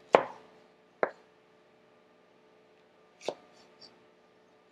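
Chef's knife slicing a jalapeño on a plastic cutting board: three sharp knocks of the blade hitting the board, the second about a second after the first and the third about two seconds later, with a fainter tap just after it. A faint steady hum lies underneath.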